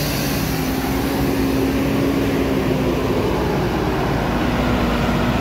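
Truck engine running at steady revs close by, a continuous drone that dips slightly in the first second and then holds even.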